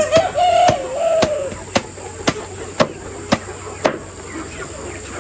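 Steady rhythmic knocking, about two sharp strokes a second, like chopping. A short wavering call sounds over it in the first second and a half.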